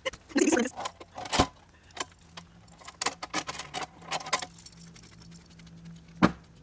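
Scattered clicks and light clatter with two sharp knocks, one about a second and a half in and one near the end, over a faint steady hum that begins about two seconds in.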